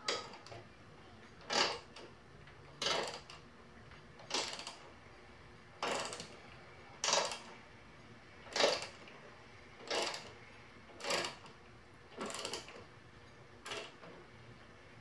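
Ratchet with a 13/16 socket working a spark plug rethreading tap into a stripped spark plug hole of a push mower engine, cutting new threads. Each short stroke of the handle makes a brief burst of ratchet clicking and metal scraping, about eleven strokes evenly spaced about a second and a half apart.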